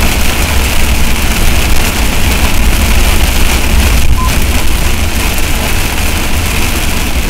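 Heavy rain coming down hard, a loud dense hiss with a deep rumble underneath, steady throughout.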